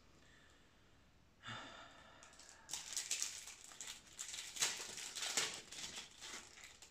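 Packaging crinkling and rustling in the hands as a small sew-on patch is unwrapped, a dense run of crackles from about three seconds in, after a short soft rustle.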